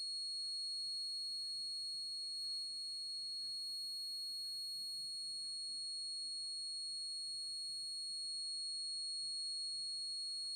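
Alert buzzer on a railway-crack-detection robot sounding one steady, unbroken high-pitched tone: the alarm that a track crack has been detected, held while the system sends its alert email. A faint low hum lies under it.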